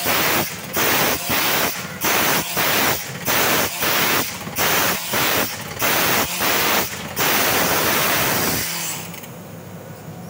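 Borewell drilling rig running, its noise coming in loud rushing bursts about every three-quarters of a second, then one longer burst that cuts off suddenly about eight and a half seconds in, leaving a steady lower hum.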